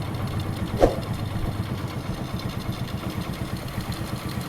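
Motorcycle engine idling steadily with an even, rapid beat, and one sharp click a little under a second in.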